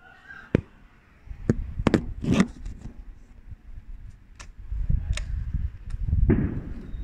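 Handling noise from a phone being carried and moved: a few sharp knocks in the first couple of seconds, then low rubbing and scraping against the microphone.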